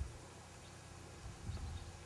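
Quiet outdoor ambience. A low bump on the camera microphone at the start and a louder low rumble of microphone buffeting about a second and a half in, with faint high chirps of small birds.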